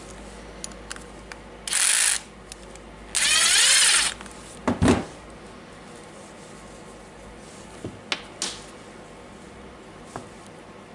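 Small cordless screwdriver running in two short bursts, the second nearly a second long, driving screws that mount a new MOSFET transistor onto a drill switch's copper plate, followed by a knock and a click as the parts are handled.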